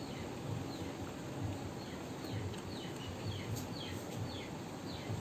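Faint chirping: a run of quick high chirps, each falling in pitch, coming several a second through the middle, over a steady background hiss.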